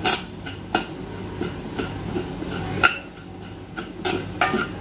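A metal spoon stirring carom seeds (ajwain) dry-roasting in a stainless steel kadhai. The seeds rattle and the spoon scrapes, with several sharp clinks of spoon against pan: one right at the start, one under a second in, one near the three-second mark and a few near the end.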